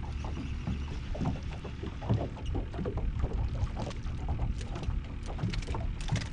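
Water lapping against the hull of a small boat, with short splashes and clicks that grow thicker near the end as a small speckled trout is reeled up to the boat and swung out of the water.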